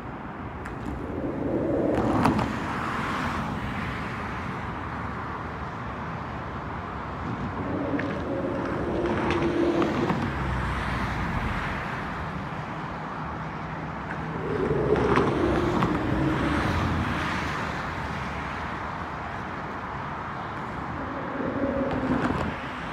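Road traffic: cars passing one after another, four in turn swelling and fading over a steady background rumble.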